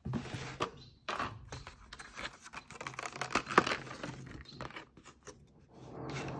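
Thin clear plastic clamshell packaging being pried apart and handled: irregular crinkling and scraping with sharp plastic clicks, the loudest a snap about three and a half seconds in.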